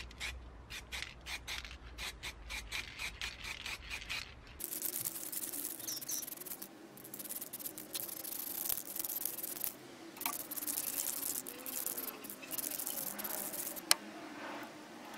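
A spray paint can rattling in quick regular clicks, about four a second, for the first few seconds, then the long hiss of aerosol primer being sprayed in passes with brief pauses, and one sharp click near the end.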